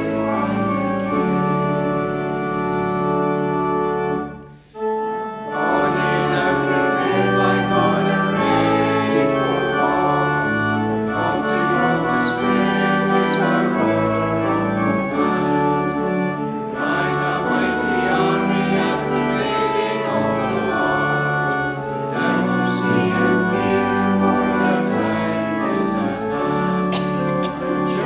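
Organ playing a hymn in sustained chords that change every second or so, with congregational singing along. About four and a half seconds in, the sound breaks off briefly between phrases.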